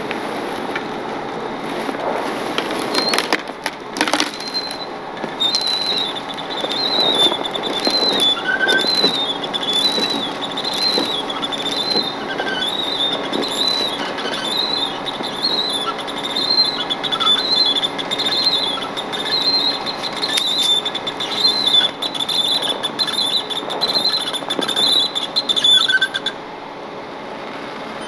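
Footsteps crunching through deep snow. A high, wavering squeal runs through most of it and cuts off sharply near the end.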